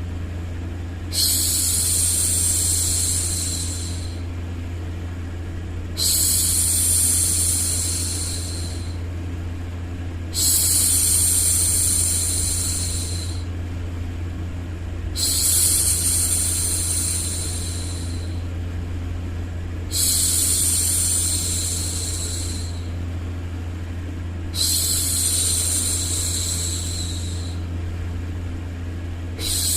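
A woman's long 'shhh' shushing to soothe a baby, repeated about every four to five seconds, each shush lasting about three seconds. It sits over a steady white-noise bed with a low hum.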